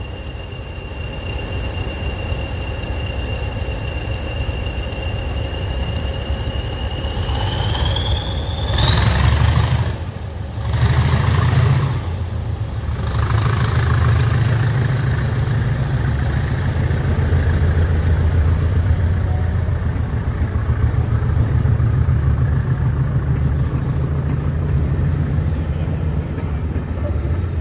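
Heritage railway train pulling out of the station. A heavy low rumble builds about seven seconds in, and a thin high whine climbs in pitch in steps as it gets under way.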